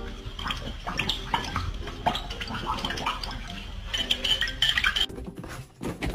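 Repeated light clinking and clattering, a string of short sharp knocks.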